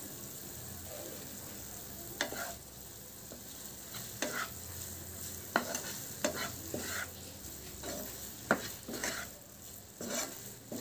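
Spatula stirring and scraping thick cooked semolina laddu mixture around a nonstick frying pan, with irregular short scrapes and taps against the pan starting about two seconds in, over a faint frying sizzle from the added ghee.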